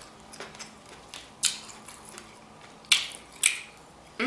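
Close-miked eating sounds from crab legs: three short, sharp, crackly smacks about a second and a half in, near three seconds, and just after, with a few fainter ticks between.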